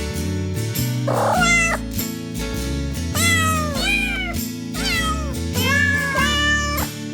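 A hairless cat meowing several times, long drawn-out meows that bend in pitch, over steady background music.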